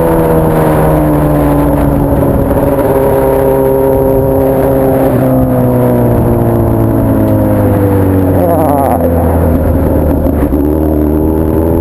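Honda Hornet inline-four motorcycle engine running loud through a 3-inch 4-2-1 aftermarket exhaust while riding. The revs fall slowly for most of the time, with a brief wavering change about nine seconds in, and rise again near the end.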